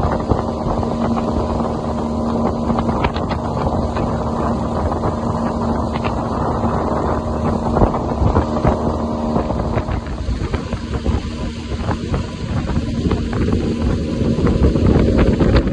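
A boat's outboard motor running steadily while the boat is under way, with wind buffeting the microphone, heavier near the end.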